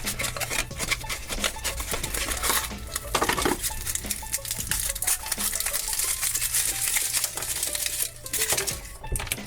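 Hands opening a foil-wrapped chocolate surprise egg: crinkling foil with many small clicks and clinks as the chocolate and the plastic toy capsule are handled.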